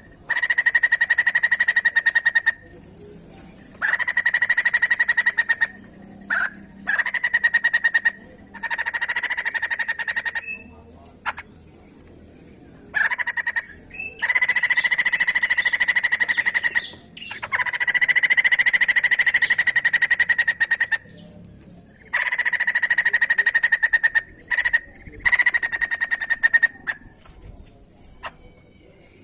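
White-crested laughingthrush (poksay jambul) calling in loud bursts of one to three seconds with short pauses between. Each burst is a very fast run of notes held on a steady pitch.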